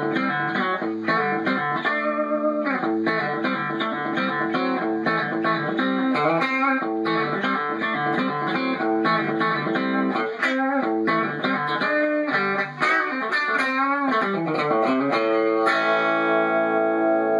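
Gibson Les Paul Studio '70s Tribute electric guitar played through an amp with a clean tone, running quick country-rock licks with string bends. Near the end it settles on a held chord that rings out.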